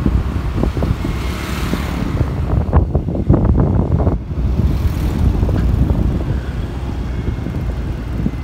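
Wind rumbling on the microphone while riding along a road, with traffic noise mixed in. A few brief knocks come about three seconds in.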